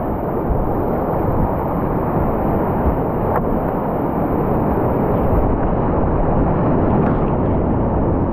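Whitewater rapid rushing and churning around a kayak, a loud steady rush that sounds muffled, with little high-pitched hiss.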